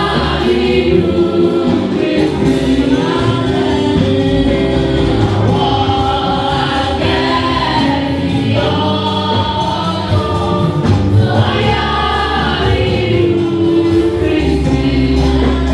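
A church choir singing a gospel hymn, with a steady bass line beneath the voices.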